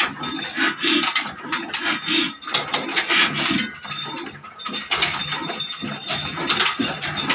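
Old single-cylinder horizontal 'New Shahi' diesel engine running with a slow, regular beat, about two to three beats a second, and metallic clinking and clatter.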